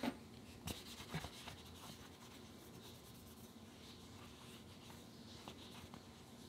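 Faint rubbing of an alcohol wipe over a smartphone's glass camera module and back, with a few soft clicks and rustles of handling in the first second or so.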